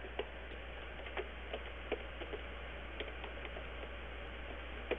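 Keystrokes on a computer keyboard, typing in quick irregular clicks, with a slightly louder pair of clicks near the end, over a faint steady low hum.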